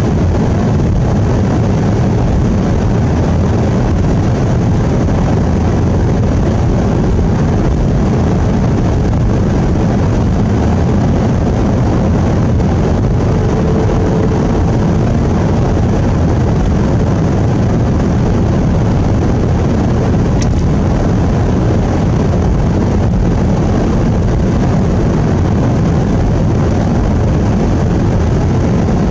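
Steady low drone of engine and tyre noise heard inside a vehicle's cabin while driving on a snowy road.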